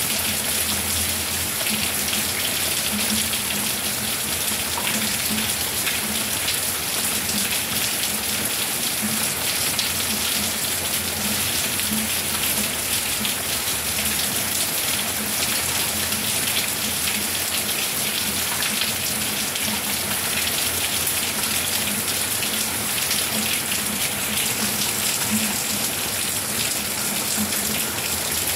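Steady rain falling: an even hiss of drops at a constant level, with many small drop hits through it.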